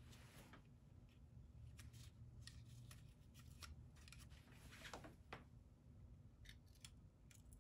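Faint, scattered short scrapes of a razor blade scraping freshly applied gasket sealant flush into corrosion pits on an engine block's water pump gasket surface, over a low steady hum.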